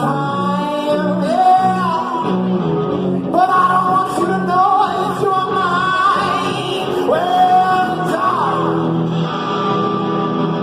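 A live band playing a song with a lead singer, the sung melody gliding over a steady, pulsing low bass line.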